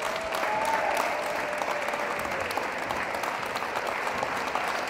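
A group of players clapping their hands together, a dense, steady patter of many claps, with a drawn-out voice calling over it in the first seconds.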